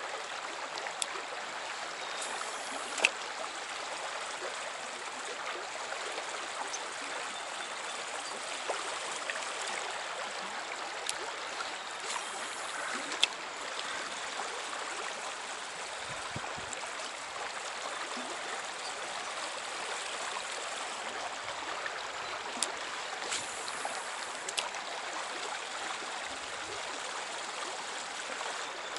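Trout stream running steadily, an even rushing of water, with a few sharp clicks here and there.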